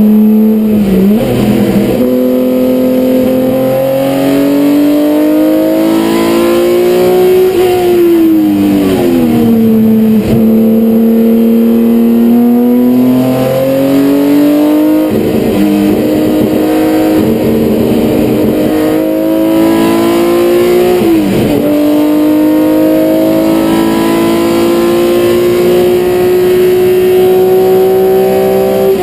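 BMW M1 Procar's M88/1 straight-six racing engine heard from inside the cockpit under hard acceleration, its note climbing through the revs. It breaks briefly at gear changes about a second in, around the middle and again a few seconds later. The revs fall steadily for a couple of seconds around a third of the way through.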